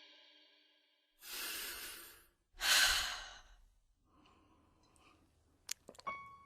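A person takes a deep breath in and lets it out in a sigh: two breathy sounds of about a second each, the second louder. The ring of a struck chime fades out just before them, and a few faint clicks come near the end.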